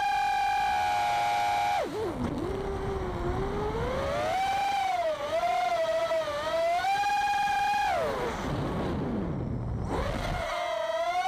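FPV drone's motors and propellers whining, the pitch following the throttle: high and steady at first, dropping about two seconds in, climbing back and wavering, then sliding down very low before rising sharply again near the end.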